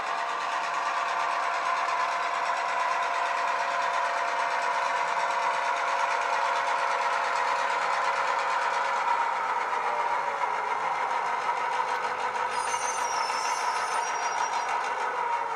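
Sound decoder in a model Irish 141 class diesel locomotive playing an ESU HiFi American EMD diesel engine sound through a bass-enhanced speaker, the engine running steadily as the loco creeps along. The engine note drops a little about nine seconds in.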